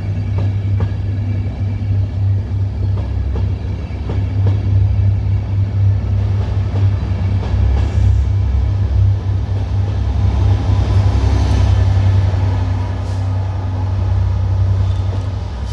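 DB Class 67 diesel locomotive 67022's two-stroke V12 engine working hard as the train pulls away, a loud, steady, deep rumble.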